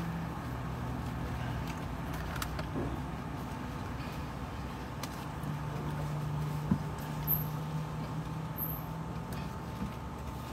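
Steady low hum of a vehicle idling, heard from inside the cabin, with a few small clicks and one sharp click about two-thirds of the way in.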